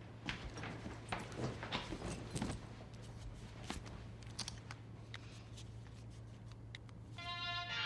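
Light, irregular clicks and taps over a low steady hum. About seven seconds in, a melody with clear sustained notes begins.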